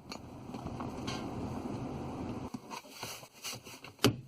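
2019 Chevy Silverado's 5.3 V8 running steadily, warmed up, then falling quiet about two and a half seconds in. A few light clicks follow, and a sharp click comes near the end.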